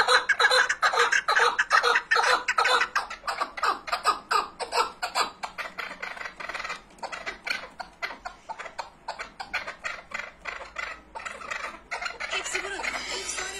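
Chukar partridge calling: a fast run of repeated chuck notes, about four or five a second, loudest in the first half and growing weaker later on.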